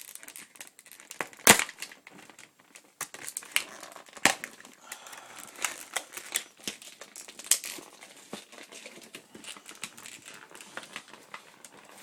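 Packaging crinkling and crackling as it is pulled and pried at by hand to free the airsoft pistol, with irregular clicks and a few sharp snaps, the loudest about a second and a half in.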